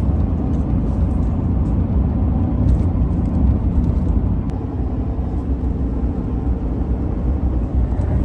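Steady low rumble of a vehicle being driven, heard from inside the cab: engine and road noise.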